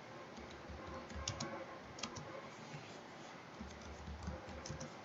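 Faint computer keyboard typing: scattered key clicks in small clusters, with a few dull low bumps.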